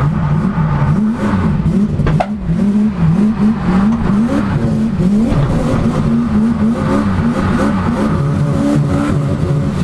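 Turbocharged Toyota 1UZ-FE V8, heard from inside the cabin, revving up and down over and over in second gear, about twice a second. There is a short knock about two seconds in.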